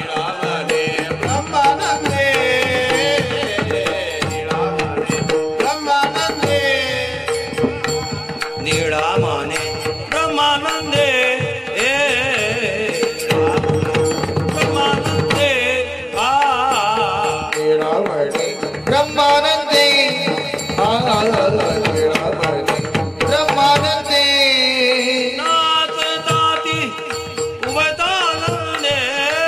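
Marathi Varkari bhajan: a male voice singing a devotional melody over hand-drum beats, with a steady drone note held underneath.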